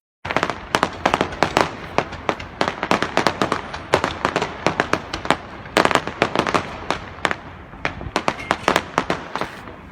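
Fireworks going off in a rapid string of sharp bangs and cracks, several a second, thinning out near the end.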